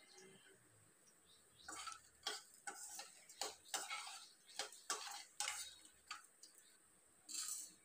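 A steel spoon stirring coriander seeds and dried red chillies in a dry stainless steel pan while they roast. It makes a run of light metal-on-metal scrapes and clicks that starts about two seconds in and stops about six seconds in, with one more short scrape near the end.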